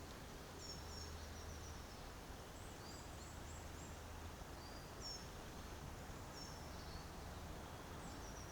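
Faint woodland ambience: small songbirds give short, high chirps in quick runs every second or two, over a low, steady rumble of distant road traffic.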